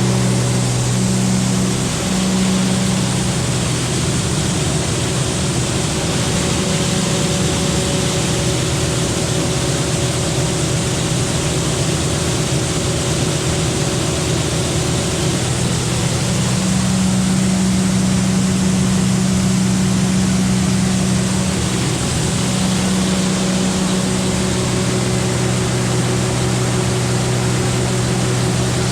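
Large farm machine's engine running steadily, with a strong low hum under a loud rushing noise.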